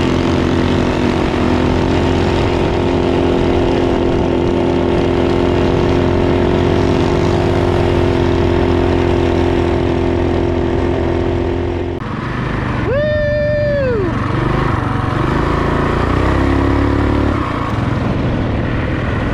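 Minibike's small engine running at steady throttle while riding, then easing off about twelve seconds in and running at a lower, uneven note. Just after it eases off, a brief high-pitched tone rises, holds and falls over about a second.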